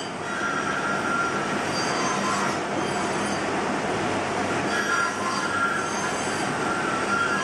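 Carving knife whittling a pine Dala horse, the blade scraping and squeaking through the wood in repeated cuts, over a steady background noise.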